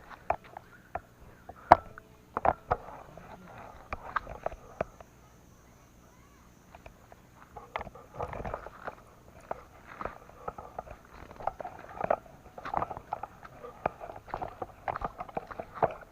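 Irregular footsteps and scuffs of people walking on dry ground, with a quieter stretch in the middle.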